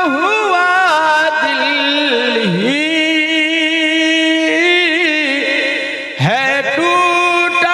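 A man singing an Urdu naat solo into a microphone, with wavering ornamented turns and a long held note, pausing briefly for breath about six seconds in before the next phrase.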